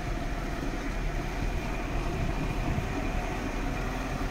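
Lada Niva running at low speed along a muddy, rutted dirt track, a steady rumble of engine and drivetrain with an uneven low rattle from the ruts.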